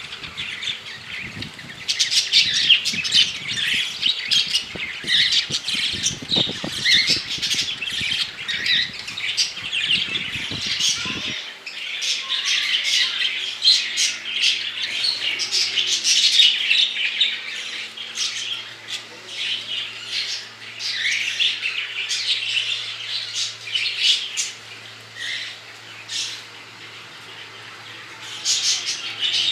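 A flock of small pet parrots, budgerigars and cockatiels, chattering, chirping and squawking together without pause. A low rumble runs underneath and stops about a third of the way in.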